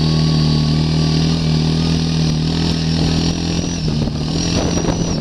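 ATV engine running at a steady speed, an even drone with a thin high whine over it and some rougher noise for a moment past the middle.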